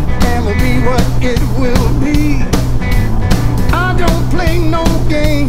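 Rock-and-roll song with singing over a steady beat.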